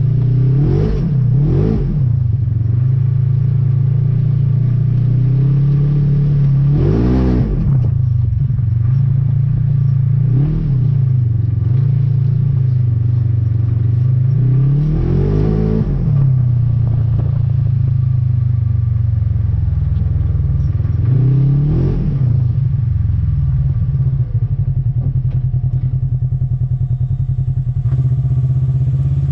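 Polaris RZR XP 4 1000 side-by-side's parallel-twin engine running under way, rising and falling in a handful of quick revs, then settling to a lower, steadier note near the end as it slows.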